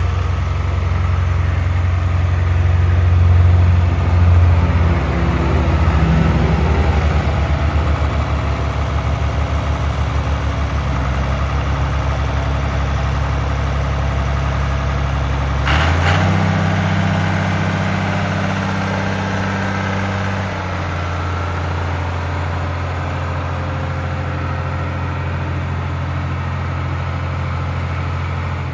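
John Deere 2840 tractor's six-cylinder diesel engine running steadily at low speed while the tractor moves slowly. About halfway through there is a short sharp noise and the engine note rises for a few seconds, then drops back to a steady run.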